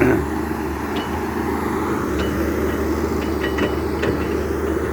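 Excavator's diesel engine running steadily under work, with a sharp knock at the start and a few light metallic ticks partway through.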